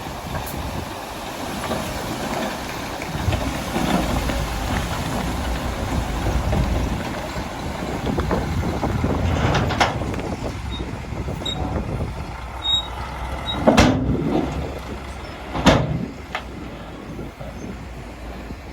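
Heavy earthmoving machinery's diesel engine running steadily, with two loud metallic bangs in the last few seconds.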